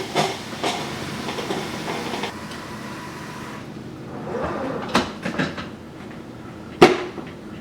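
Clunks and knocks of a drip coffee maker and its carafe being handled, with a sharp knock just before the end. Under them a steady hiss cuts off suddenly about three and a half seconds in.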